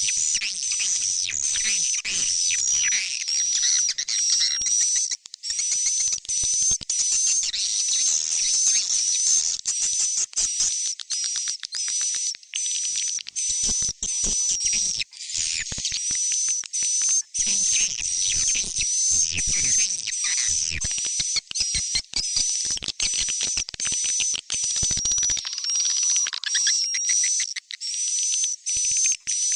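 Swiftlet chick calls from a farmers' lure recording: a dense, continuous run of short, high-pitched twittering chirps with brief gaps. The track is made to be played in a swiftlet house to draw the birds in to roost and nest.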